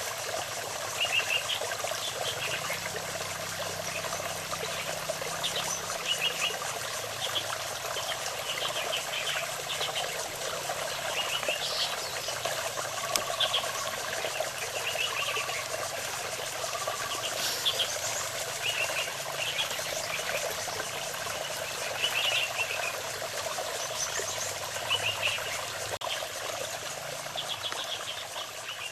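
Small birds giving short, high chirping calls every second or two, with a few lower whistled notes in the middle, over a steady wash of trickling water.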